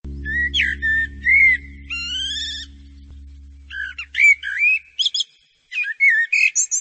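Songbird song: quick warbling whistled phrases that rise and fall, in two groups with a short pause between. Under the first phrases runs a low steady hum that fades out about five seconds in.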